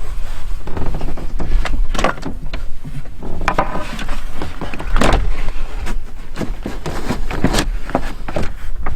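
Wind buffeting the microphone in a steady low rumble, with a run of clattering knocks and rustles over it.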